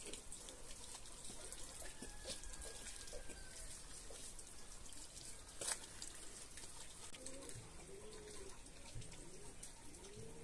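Faint water running from a tap pipe into a bucket and splashing as clothes are scrubbed by hand in a concrete washing basin, with small knocks and one sharp click about halfway through. A bird calls repeatedly in the later seconds.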